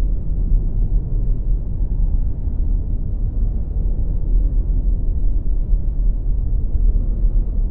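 Steady, deep rumbling drone of an ambient soundtrack, with almost nothing above the low end and no separate events.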